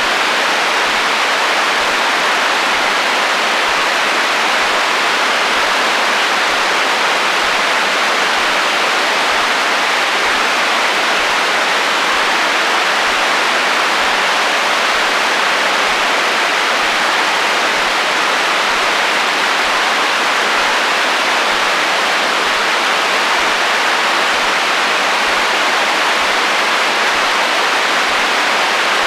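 Radio receiver static: steady hiss of interference noise between stations, even and unbroken, strongest in the middle and upper range with little low rumble.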